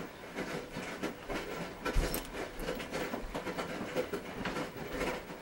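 Small retainer parts clicking and rattling in a plastic lid as fingers pick through them, with a sharper knock about two seconds in.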